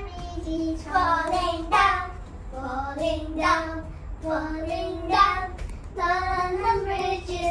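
A child's voice singing a tune in a string of held notes.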